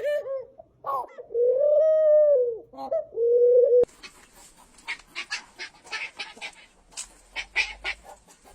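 An animal's drawn-out calls, one long and arching, that stop abruptly about four seconds in. After them comes an irregular run of short, sharp clicks or taps.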